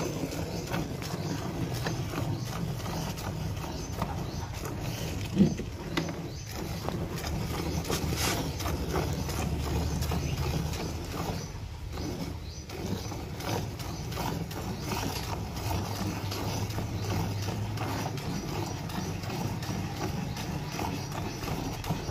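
Cow being milked by hand: squirts of milk hit a steel pail in a steady rhythm of squeezes. A single sharp knock comes about five seconds in.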